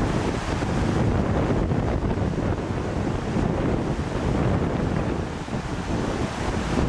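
Rushing river water with wind buffeting the microphone, a steady rough noise heaviest in the low end.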